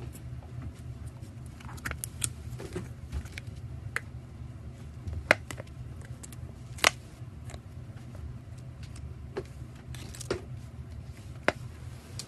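Slime being played with: scattered sharp clicks and small pops, three of them louder, over a steady low rumble.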